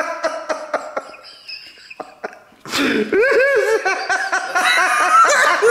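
A man laughing helplessly. A laugh trails off, then come a second or two of quieter, short breathy catches, then loud bursts of high, wavering laughter from about three seconds in.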